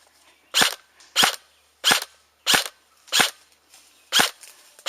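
Airsoft gun firing semi-automatic, about seven sharp shots in a steady rhythm, roughly one every two-thirds of a second.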